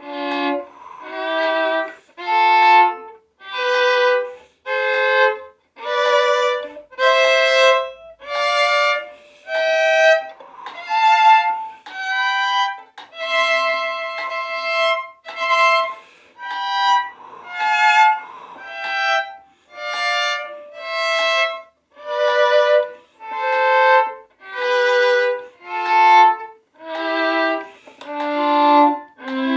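Violin playing a C major scale in thirds as double stops, one bowed beat per pair of notes: about two dozen separate notes climbing to the top of the scale and coming back down.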